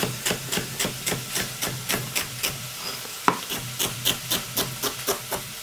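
Chef's knife chopping celery stalk on a plastic cutting board, a quick steady run of about four to five chops a second, with one louder knock about three seconds in.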